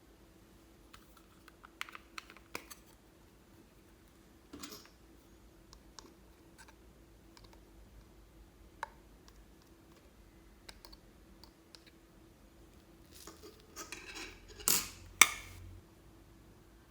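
Scattered small clicks and taps from hands working with slime and its add-ins, with a cluster of louder, sharper snaps near the end.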